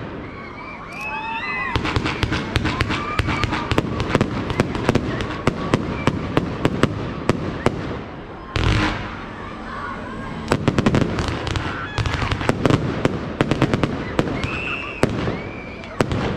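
Fireworks display: rapid runs of sharp bangs and crackles, with a heavier boom about nine seconds in and a brief lull around it.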